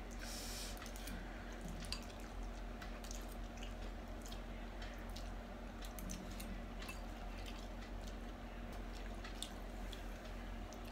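Two people eating spicy instant noodles with forks: soft wet chewing and slurping with many small scattered clicks, over a faint steady low hum.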